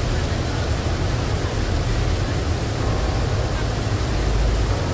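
Steady roar of rushing water from a waterfall and rocky stream, an even noise with a heavy low rumble.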